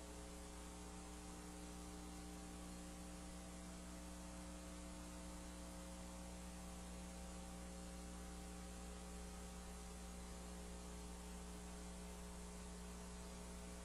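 Faint, steady electrical mains hum, several steady tones over a background hiss, unchanging throughout.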